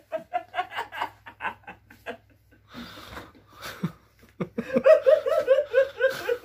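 A man laughing hard: quick, short pulses of laughter, a breathy stretch, then a louder run of pitched "ha-ha-ha" about four and a half seconds in.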